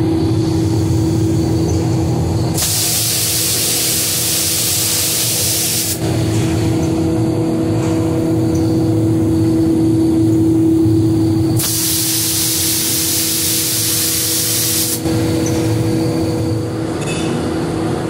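Automatic spray guns on a glass-bottle painting line firing twice, each a hiss of about three and a half seconds that starts and stops abruptly, over a steady machine hum.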